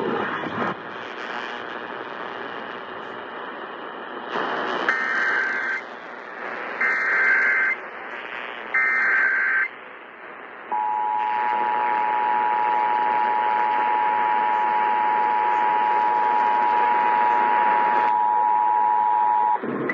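Emergency Alert System signal over radio hiss: three separate one-second bursts of warbling SAME header data tones, then the steady two-tone EAS attention signal held for about nine seconds, the signal that opens an Amber Alert broadcast.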